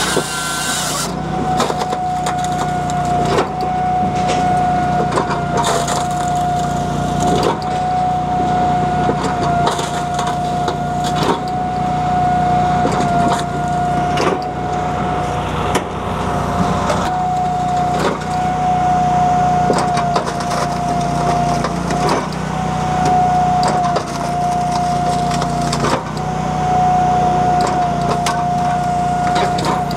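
Japa 365 firewood processor running on its Honda iGX700 V-twin engine, with a steady high whine over the engine hum. Repeated sharp cracks and knocks come every second or two as logs are split and the firewood pieces tumble out onto the conveyor.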